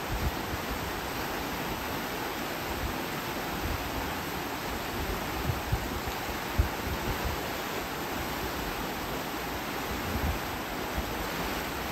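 River water rushing and splashing over stones in a shallow, fast riffle: a steady, even rush, with occasional short low bumps on the microphone, the strongest about six and a half seconds in.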